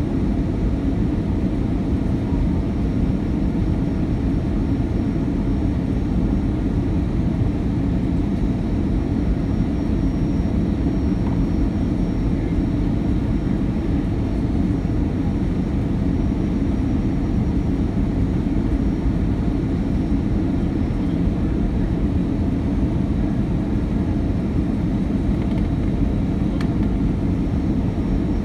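Steady low rumble of an Airbus A319-115's engines and airflow heard inside the passenger cabin in flight.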